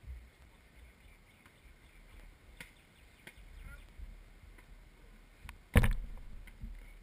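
Low rumble of wind on the microphone, with a few faint taps and one loud, sharp smack about six seconds in: a hand striking a volleyball.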